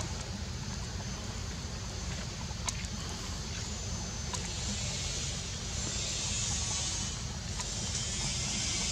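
Outdoor forest ambience: a steady low rumble of wind on the microphone under a high hiss that grows louder about five seconds in, with a few faint ticks.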